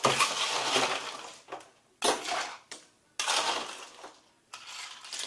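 Ice cubes scooped out of a stainless-steel bar ice well and dropped into a glass, clattering and rattling in four bursts, the first and longest at the start.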